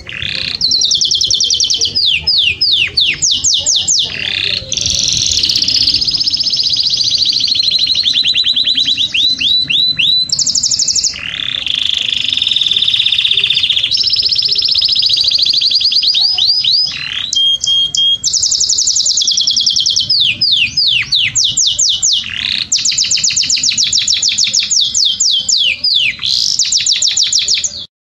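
Canary singing loudly in a long run of fast trills and rolls, each phrase of rapidly repeated notes giving way to another every second or two. It cuts off suddenly near the end.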